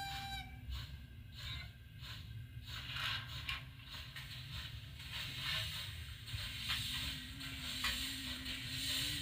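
Sound-decoder Roco H0 model of an FS Gr.880 steam tank locomotive: a whistle blast cuts off in the first half-second. Then comes steam chuffing and hiss from the decoder as the model runs slowly, over a steady hum and the rumble of its mechanism on the track.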